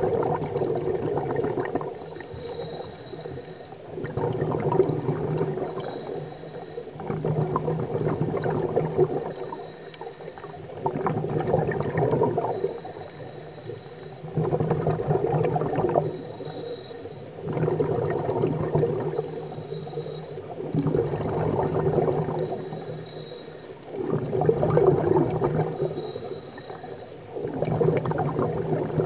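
Scuba diver breathing through a regulator underwater: bubbling exhalations about every three seconds, each lasting a couple of seconds, alternating with quieter inhalations through the regulator.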